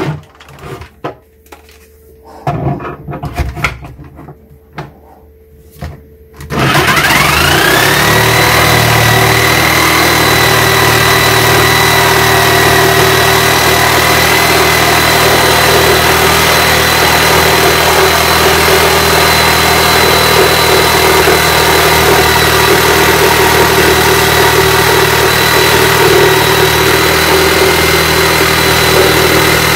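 Black & Decker jigsaw cutting through a cabinet shelf. It is stopped at first, with only a few knocks. About six seconds in it starts with a rising whine, then runs steadily as the blade cuts along the shelf.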